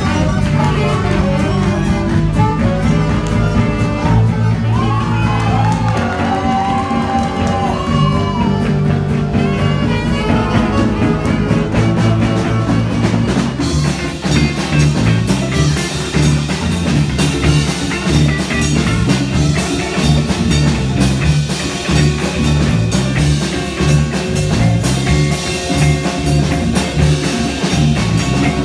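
Live band playing a loud jazz-funk instrumental: electric guitars, saxophones, congas and drum kit over a driving, repeating low line, with a lead line sliding up and down in pitch about five seconds in.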